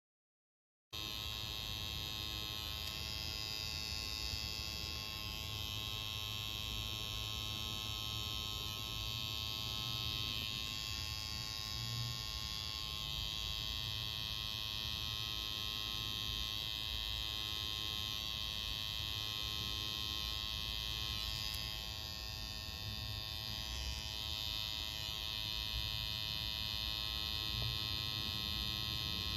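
Pen-style tattoo machine running with a steady buzz as its needle works red ink into skin; the buzz starts about a second in.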